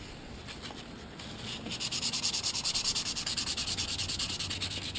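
600-grit sandpaper rubbed back and forth across a cast Nordic gold (copper-alloy) coin to smooth its surface. It starts as a soft scrape, then turns into a louder, fast, even hiss of rapid strokes after about a second and a half.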